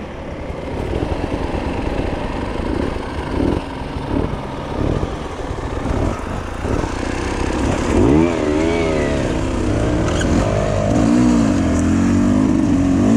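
Enduro motorcycle engine running, its pitch rising and falling as the throttle is blipped, with clear revs a little past halfway and again near the end.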